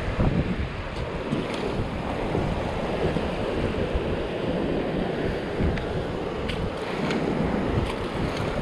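Wind buffeting the microphone over the steady wash of small waves running up a sandy beach.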